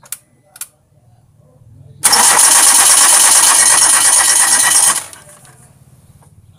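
Two light ticks about half a second apart as the ignition of a Hyundai Getz 1.3 SOHC petrol engine is switched on, then the starter cranks the engine for about three seconds and stops without the engine firing. The no-start, which the owner first took for a failing fuel pump, came from a disconnected connector on the engine's side, possibly the crank sensor.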